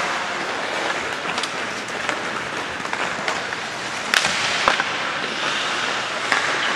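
Rink noise of an ice hockey game: skates scraping the ice and sticks clacking, with sharp cracks of stick on puck or pads about four seconds in and again half a second later.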